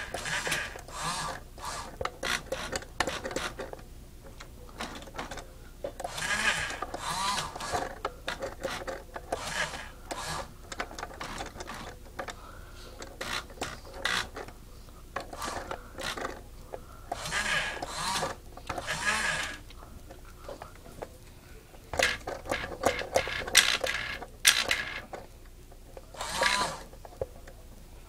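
Small electric motors and gears of a model Mi-Jack crane whirring in short stretches as it moves and lifts trailers onto flatcars, with many clicks and knocks between runs.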